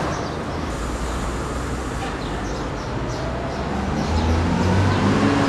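Street traffic noise with a low engine hum that grows louder about four seconds in, and faint short high chirps over it.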